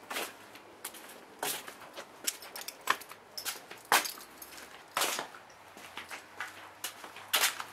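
Footsteps crunching on a gravel path, an uneven crunch roughly every second with softer scuffs between.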